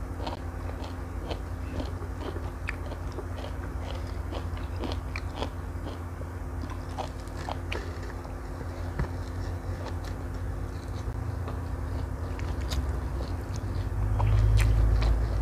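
Close-miked chewing and wet mouth clicks of someone eating fried instant noodles with rice by hand, with soft crunches, over a steady low hum. A low rumble swells near the end.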